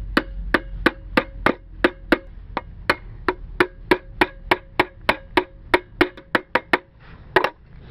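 Quick, even taps on thin steel aerosol cans, one can being worked down onto the other's cut rim to shape it. About three to four sharp metallic taps a second, each with a short ring, stopping with a louder knock a little after seven seconds in.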